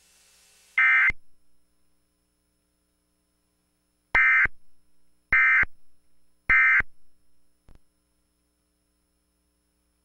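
Emergency Alert System digital data tones: short, harsh buzzing bursts of the SAME code. One comes about a second in, then three in a row about a second apart. The triple burst marks the end of the alert message.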